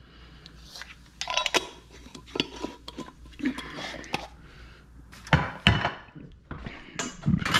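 Metal spoon clinking and scraping against a pot and salt container while a tablespoon of salt is measured into a pot of water on the stove. Scattered light clinks, some with a short ring, and two louder knocks about five and a half seconds in.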